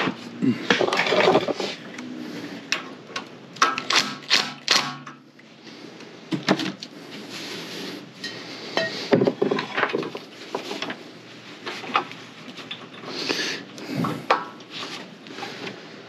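Scattered clinks and knocks of hand tools and small metal engine parts being handled and set down on a wooden workbench, some with a short metallic ring.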